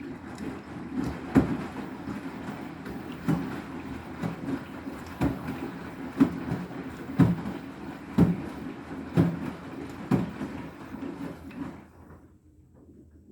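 Front-loading washing machine drum tumbling two waterlogged pillows in the rinse, with sloshing water and a heavy thud about once a second as the load drops. The drum stops turning a little before the end.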